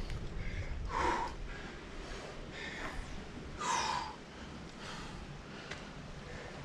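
A rock climber breathing hard with effort, with two loud, forceful breaths about a second in and near four seconds, and softer breaths between.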